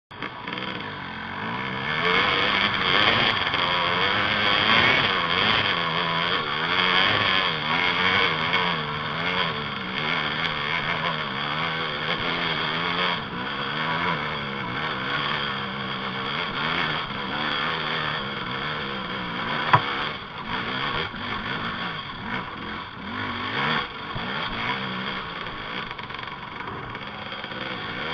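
Dirt bike engine rising and falling in pitch as the bike is ridden along a rough trail, with a sharp knock about twenty seconds in.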